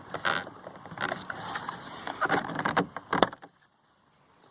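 Flathead screwdriver prying a plastic trim piece off a car's inner door panel: plastic scraping and clicking, with two sharp snaps about three seconds in as its retaining clips let go.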